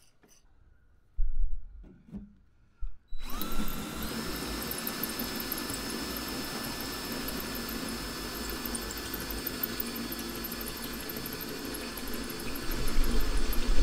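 Cordless DeWalt 18V drill driving a 20 mm hole saw into the van's sheet-metal roof. After two short knocks, the motor starts about three seconds in with a rising whine that settles to a steady pitch. The cutting grows louder and rougher near the end.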